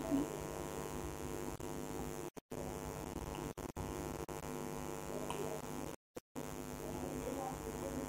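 Steady electrical mains hum, a stack of evenly spaced steady tones, cutting out to silence briefly a few times.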